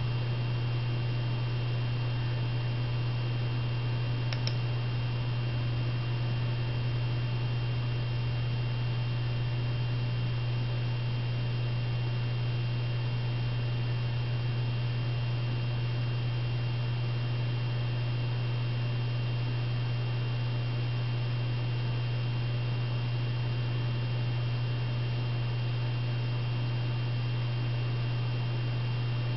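Steady low electrical hum with a thin high whine over a constant hiss, and one faint tick about four and a half seconds in.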